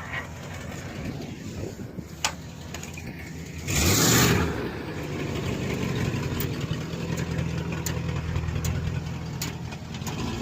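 Pickup truck engine running steadily, with a loud rush of noise about four seconds in, after which the engine runs slightly louder.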